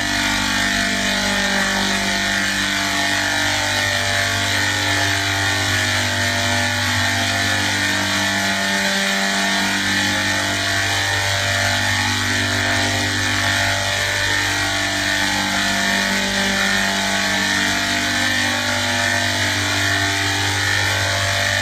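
Steady, unbroken machine noise: a constant low hum with a dense hiss over it, never stopping or changing in level.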